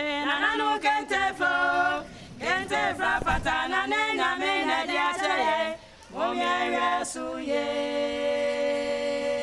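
A group of voices singing a cappella in short phrases, ending on one long held chord over the last couple of seconds.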